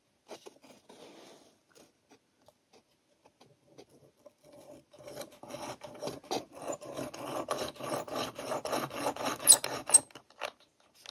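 Small hand drill with a fine bit boring through a miniature brass hinge's screw hole into a door edge: faint scattered scratches at first, then about five seconds in a dense, rapid scratchy rasping as the bit cuts, with one sharp click near the end.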